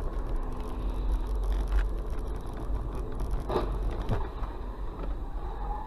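Car engine and tyre noise heard from inside the cabin while driving: a steady low rumble with a faint hum, and two short knocks about three and a half and four seconds in.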